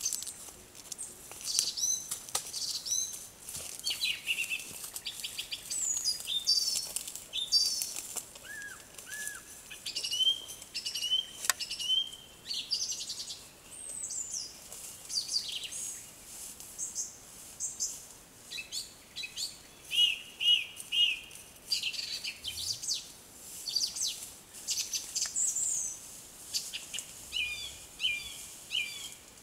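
Several songbirds singing at once: a dense, overlapping chorus of short high chirps, trills and whistled phrases.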